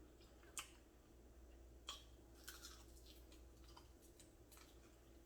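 Near silence: room tone with a few faint, short clicks, three of them a little stronger than the rest.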